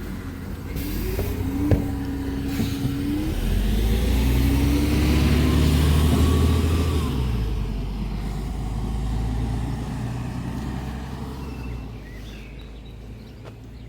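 A motor vehicle's engine running, growing louder to a peak about six seconds in and then fading away, as of a vehicle passing by.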